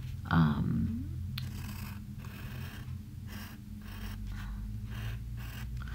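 Pencil drawing on paper: a run of short scratchy strokes, about two or three a second, as small triangles are sketched. A brief vocal hum comes about half a second in.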